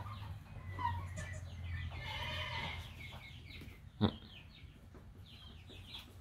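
Barnyard fowl clucking and chirping in short, repeated calls. About four seconds in there is a single sharp knock, a kid goat's hooves landing on a concrete block.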